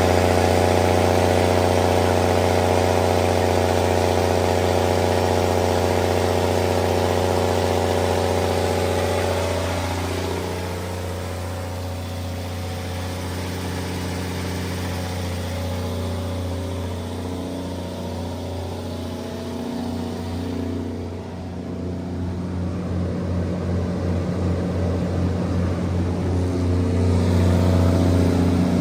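Cummins LTA10-G1 turbocharged inline-six diesel of a 230 kW standby generator set running steadily at its 1800 rpm governed speed. The sound drops in level about ten seconds in and grows louder again toward the end.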